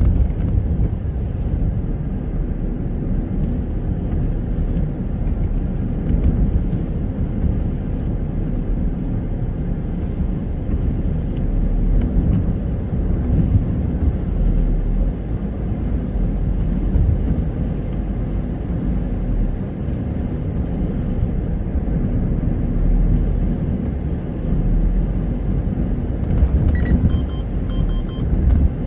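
Front-wheel-drive car driving at a steady pace, a continuous low rumble of engine and road noise. A few short, faint beeps sound near the end.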